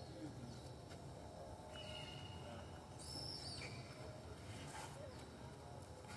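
A few faint, high chirping calls over a low steady background rumble, with one rising-and-falling call about halfway through.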